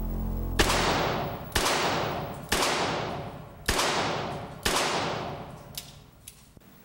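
Five handgun shots about a second apart, each with a long echoing decay.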